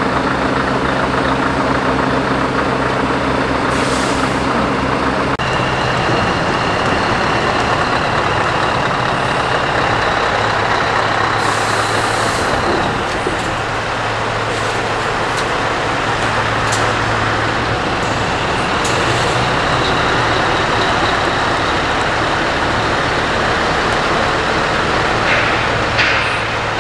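Scania V8 truck engines running steadily at low speed, first the 143H, then a bonneted T-series tractor. Short air-brake hisses come about four seconds in and again around twelve seconds, and a few sharp clicks sound near the end.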